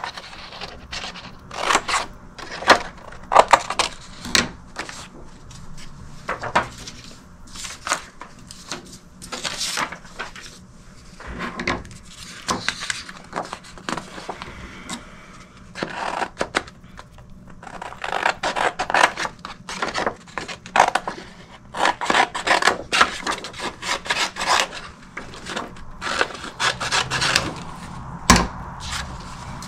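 Irregular scraping, rubbing and knocking of hard objects, in quick strokes that come in clusters.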